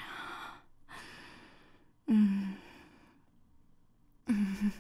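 A woman's breathy sighs and moans. It starts with a long breathy exhale. About two seconds in comes a loud voiced moan, and near the end a shorter, broken moan.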